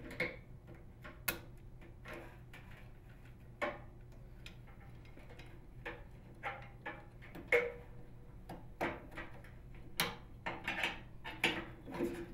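Irregular plastic clicks and knocks as microwave door interlock switches are handled and snapped into a plastic door latch bracket. There are a dozen or so sharp clicks, coming closer together in the second half.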